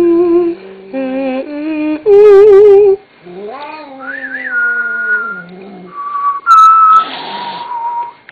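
Devon Rex cat growling and yowling at the kitten slippers in a string of long, wavering, pitched moans, with a hiss-like burst near the end. It is a territorial threat at slippers that the cat takes for another cat.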